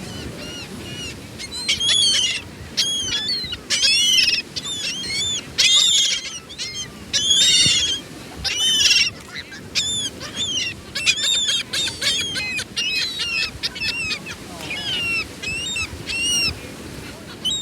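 A group of seagulls calling: many short, arched squawks that often overlap, coming thick and fast for most of the stretch and thinning out near the end.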